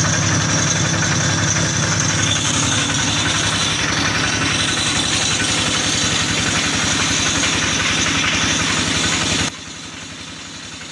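Engine running steadily under load, with a fast even pulse, driving a feed pellet mill as it presses out pellets. About nine and a half seconds in the sound drops off suddenly to a much quieter steady running sound.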